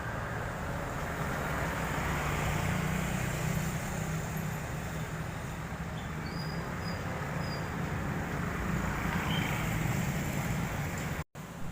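Steady vehicle engine rumble and road traffic noise at a railway level crossing, with a low hum throughout. The sound cuts out briefly near the end.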